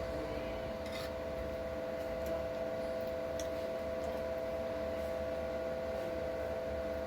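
Steady room hum with two pitches, like a fan or appliance running, with a few faint clicks.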